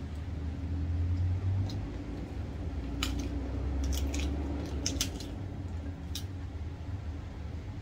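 Chewing with a full mouth, then crisp raw cabbage leaves crackling and snapping as they are torn off by hand, several sharp crackles from about three to six seconds in. A steady low hum runs underneath.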